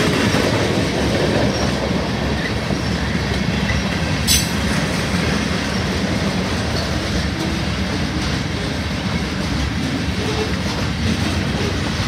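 Freight train cars rolling past at a grade crossing: a steady rumble of steel wheels on the rails, with a single sharp click about four seconds in.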